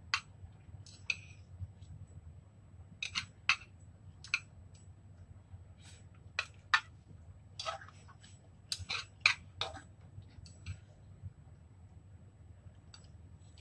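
Metal chopsticks clicking and scraping against a ceramic bowl while picking up noodles: scattered sharp clinks, busiest between about three and ten seconds in.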